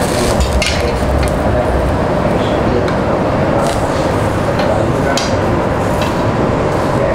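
Food sizzling on a tabletop barbecue grill over a steady hum, with a few light clicks of metal tongs against the grill plate.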